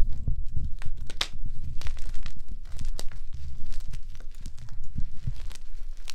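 Blocks of gym chalk being crushed by hand, a dense irregular run of dry crunches and crackles with a low rumble of handling beneath.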